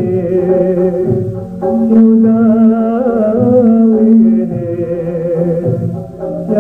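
Algerian Andalusian (sanaa) orchestra playing an inqilab in the sika mode on bowed and plucked strings, with a male voice singing along and holding one long note through the middle. The old 1953 radio recording sounds narrow and dull.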